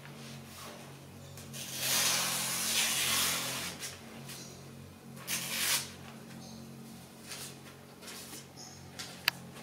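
Freshly sharpened katana edge slicing through a hand-held paper brochure as a sharpness test. The paper tears against the blade in a long cut about two seconds in and a shorter one just past five seconds, with lighter cuts later and a sharp click near the end.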